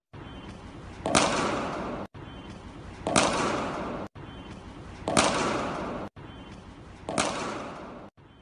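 A cricket bat striking a ball in an indoor practice net: a sharp crack with an echoing tail of about a second, repeated four times about two seconds apart.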